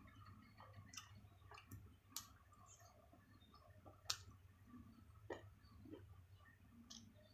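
Near silence broken by a few faint, scattered clicks and smacks of someone eating a meal of fried chicken and rice.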